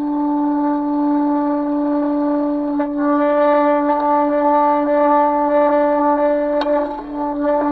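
A sustained horn-like drone in an experimental music piece, holding one low pitch with a stack of overtones; it grows brighter about three seconds in, and a brief click sounds near the end.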